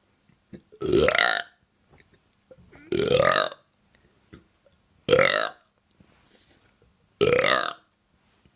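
A woman belching: four loud burps about two seconds apart, each lasting about half a second and rising in pitch.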